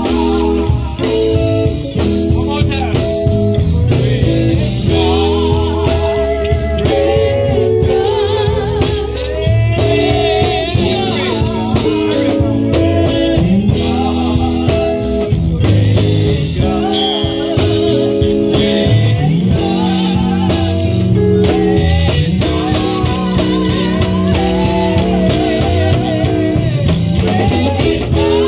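Live gospel worship music: an electric bass and an electric guitar playing, with singing over the band.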